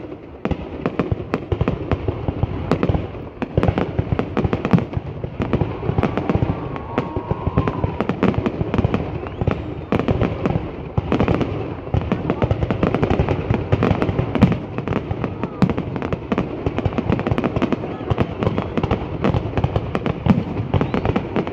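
Fireworks going off in a continuous barrage of bangs and crackles, many each second, with no break.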